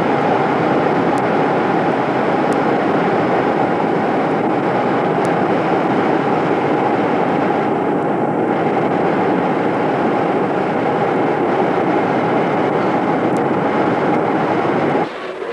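Steady cabin noise of a jet airliner in flight, engine and airflow noise picked up by a camcorder's microphone at a window seat, with a steady hum running through it. It cuts off suddenly near the end.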